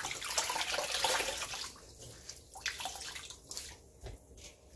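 Water splashing and dripping as handfuls of blanched pepper leaves are lifted out of a steel bowl of rinse water and squeezed out by hand. The splashing is loudest for about the first two seconds, then gives way to scattered small splashes and drips.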